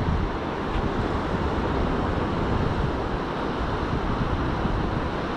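Steady wind noise on the microphone, with sea surf washing in behind it.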